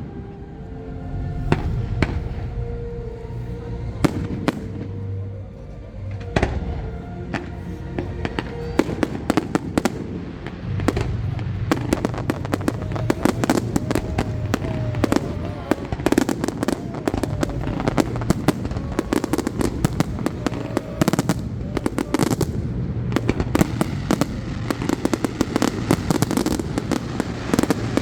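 Fireworks display: a long run of bangs and crackling bursts that grows much denser from about eleven seconds in, with music playing underneath.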